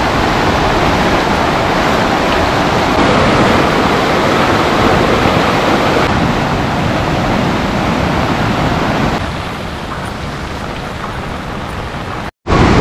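Floodwater running off the hills in a fast torrent: a steady, loud rush of water. It drops to a quieter level about nine seconds in and cuts out briefly near the end.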